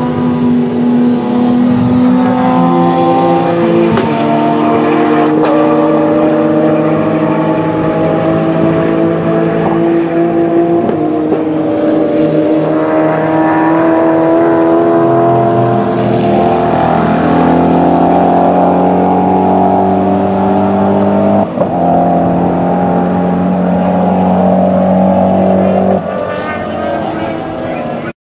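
Several GT race cars at full throttle down a straight, their engine notes climbing and dropping back at each upshift every few seconds as they pass close by. The sound cuts off suddenly near the end.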